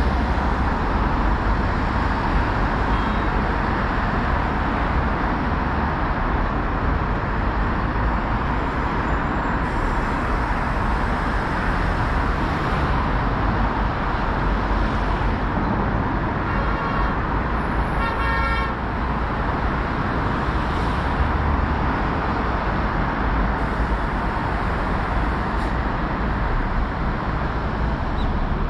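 Steady road traffic noise, with a vehicle horn sounding briefly twice a little past the middle.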